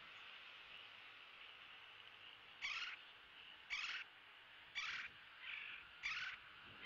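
A bird calling four times, about a second apart, each call short, harsh and high, with a weaker call between the third and fourth, over a steady background hiss.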